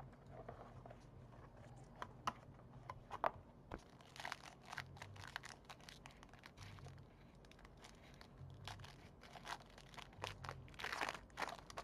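Packaging of a trading-card box crinkling and tearing as it is opened, with scattered light clicks and taps as cards are handled. The longest crinkle comes near the end.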